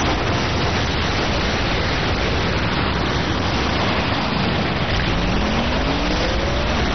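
Big explosion sound effect from an animated show: a loud, dense, unbroken blast of noise. About five seconds in, vehicle engines join with a rising whine as they rev up.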